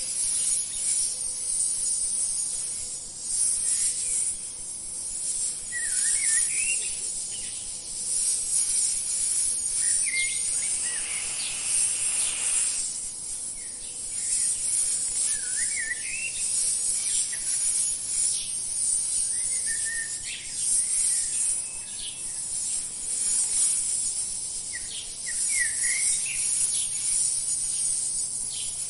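A steady high-pitched insect chorus, crickets or similar, with short bird chirps every four or five seconds. A brief soft rush of noise comes about twelve seconds in.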